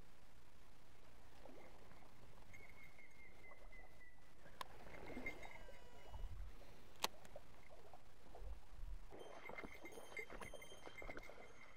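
Handling of a baitcasting rod and reel over a quiet, steady background: two sharp clicks a few seconds apart, then a run of small ticks and rattles near the end.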